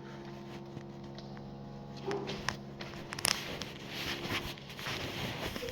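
A steady hum of several fixed tones, with scattered small clicks and rustles of handling starting about two seconds in.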